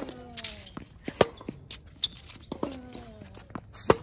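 Tennis rally on a hard court: a ball struck by rackets and bouncing on the court, with sharp pops roughly every second. The loudest pop, near the end, is the near player's racket hitting the ball.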